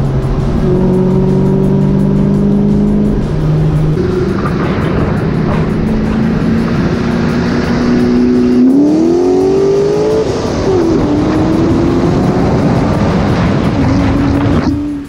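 Car engine running while driving: its pitch climbs as it accelerates about nine seconds in, drops suddenly at a gear change, then rises again.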